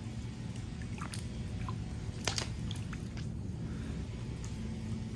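Hands working in a wet, gravel-lined sump pit, small stones clicking and scraping a few times as they are picked out of the clogged sump pump; the sharpest click comes about two seconds in. A steady low hum runs underneath.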